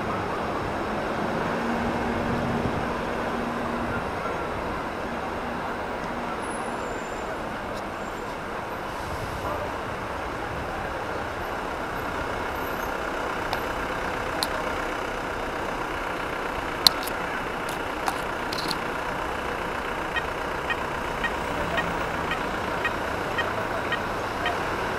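Street traffic noise at a junction: a steady mix of idling car engines and road noise around the stopped bicycle. A few sharp clicks sound around the middle, and a regular ticking, about two a second, runs through the last few seconds.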